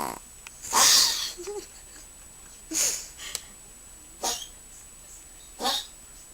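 A sleeping chihuahua breathing noisily through its nose in its sleep: four short, breathy snuffles about a second and a half apart, the first the loudest, between spells of pitched snoring.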